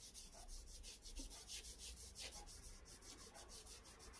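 Watercolour paintbrush scrubbing back and forth on paper in quick, even strokes, about seven a second, faint.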